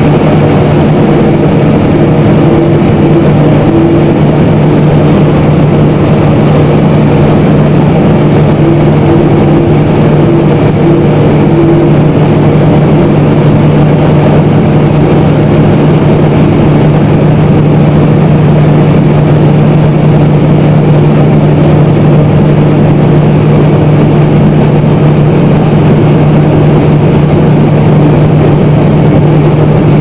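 Claas Lexion combine harvester running steadily at working speed while unloading corn through its unloading auger into a grain cart alongside: a loud, even mechanical drone with a strong steady low hum.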